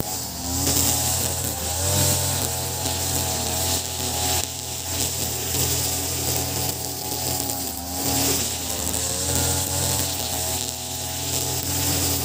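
Ogawa BG330 33cc two-stroke brush cutter running at working speed, its 2.4 mm square nylon line whirring as it cuts grass. The engine note wavers slightly up and down as the head is swung.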